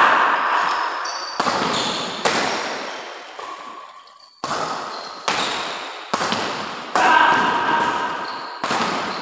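Badminton rally: rackets striking the shuttlecock about once a second, each hit a sharp crack that echoes through the large hall, with a short pause a little before the middle.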